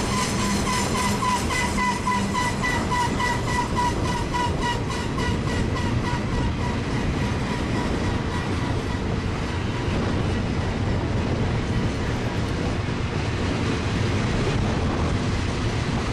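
Double-stack intermodal freight train's well cars rolling past with a steady rumble and regular clicking of the wheels. A thin high squeal from the wheels sounds in the first few seconds and fades out about five seconds in.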